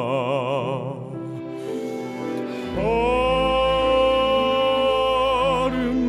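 A male baritone holds the end of a sung ballad line with wide vibrato, then the accompaniment plays on with a long, steady held note coming in about three seconds in over a low bass.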